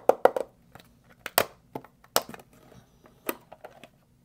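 A small plastic hard case being handled and its latches snapped open: a quick run of three sharp clicks just after the start, then a few single clicks and snaps spread over the next few seconds.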